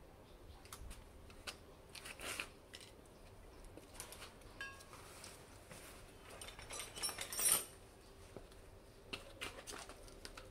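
Scattered small clicks and snips of hand tools being handled, with a louder stretch of rustling and clatter about seven seconds in as a tool bag is rummaged through.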